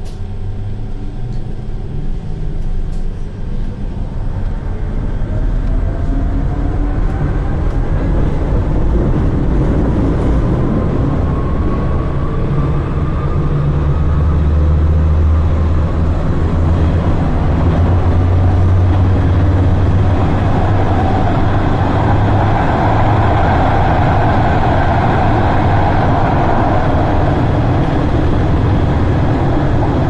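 Istanbul M1 metro train pulling away and accelerating, heard from inside the passenger car. A motor whine climbs in pitch over the first ten seconds or so while the rumble grows louder, then it settles into a steady rumble of the train running at speed through the tunnel.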